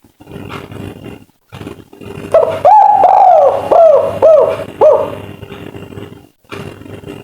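Spotted dove (tekukur) cooing a 'kuk 3' phrase: a run of about five arched coos, the first two longer and the last three quicker, over a steady background of noise and knocks.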